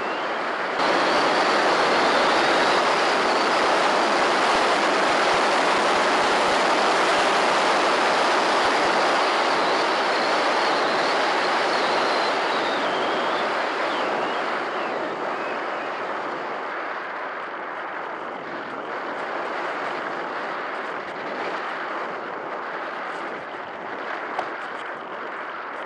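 Airflow noise rushing over the onboard camera of an EasyGlider Pro RC glider in flight: a steady hiss that steps up about a second in and then slowly fades as the glider comes down. Near the end there are a few short scrapes as it touches down in grass.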